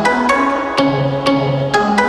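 Background music: pitched instrumental notes over a steady percussive beat.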